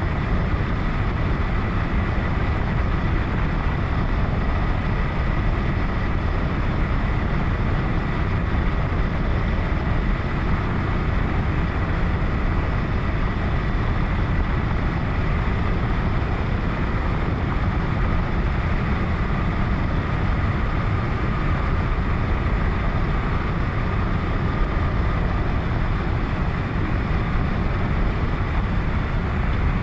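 KTM 1090 Adventure motorcycle's V-twin running steadily at riding speed, mixed with wind rush, as a low, even drone with a faint steady whine over it.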